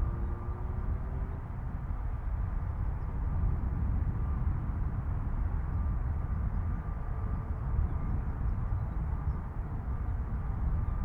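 Aircraft engines heard at a distance: a steady low rumble with a faint high whine that comes and goes.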